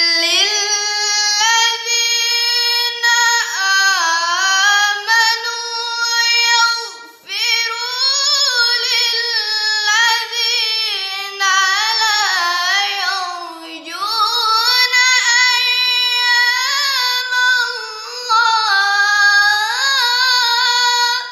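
A girl's voice reciting the Qur'an in melodic tilawah style: long held notes with ornamented glides, with a brief breath pause about seven seconds in.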